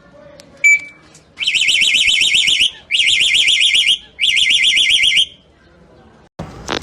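Alarm sounding in three bursts of about a second each, a fast-warbling high tone. A short sharp beep comes just before the bursts.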